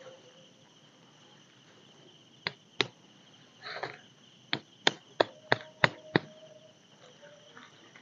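Crickets chirring steadily, with a run of sharp knocks from a machete: two about two and a half seconds in, then six more in quick succession at about three a second.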